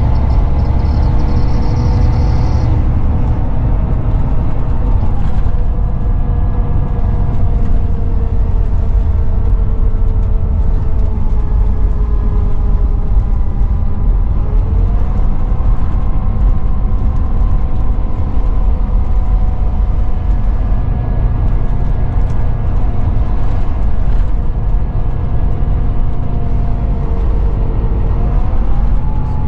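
Volvo B9R coach on the move, heard from inside the passenger saloon: engine and road rumble with a whining drivetrain tone that slowly falls in pitch, then steps up sharply twice, about halfway through and near the end.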